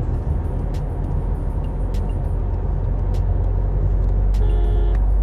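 Low rumble of road and engine noise inside the cabin of a 2021 Tata Safari (2.0 L Kryotec turbo-diesel) on the move, growing steadily louder. A horn sounds briefly near the end.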